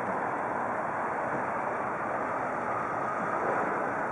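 Steady rushing noise of wind and water, even throughout, with no engine note, horn or other distinct sound standing out.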